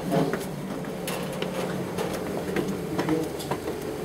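Footsteps on outdoor concrete stairs, a sharp step or scuff about twice a second, over a steady low hum.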